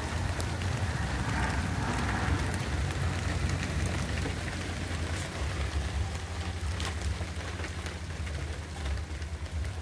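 Rain falling steadily: a constant hiss with scattered drop ticks over a low rumble.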